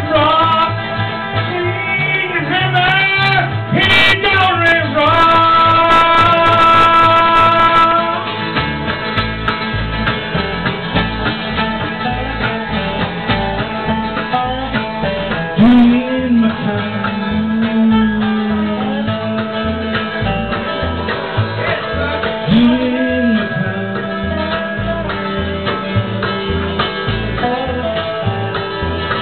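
Live bluegrass band playing: mandolin, upright bass and acoustic guitar, with a steady plucked bass pulse, and voices singing that are most prominent in the first eight seconds or so.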